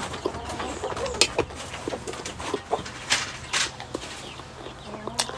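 Chickens clucking amid close-up chewing and crunching of fried momos, with sharp crunches about a second in and around three seconds in.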